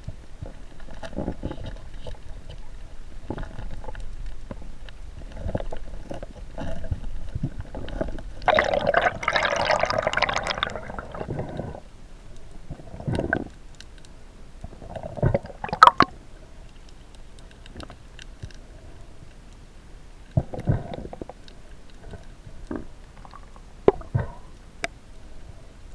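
Water sloshing and gurgling around the camera, with a dense burst of bubbling for a few seconds just before the middle. Several sharp clicks or knocks come later.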